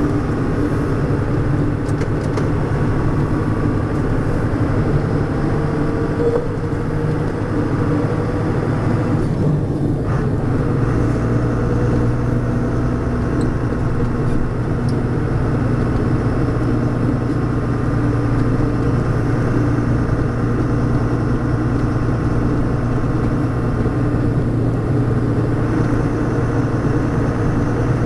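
MAN 18-tonne truck under way: its D0836 six-cylinder diesel runs steadily while the Eaton Roadranger gearbox and a worn differential whine, the diff noise coming from a lack of maintenance. The sound briefly changes about ten seconds in.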